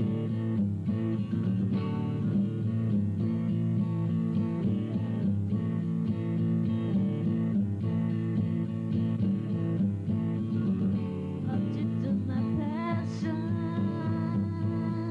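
Rock song with a guitar-led band playing steady chords, and a voice singing over it from about twelve seconds in.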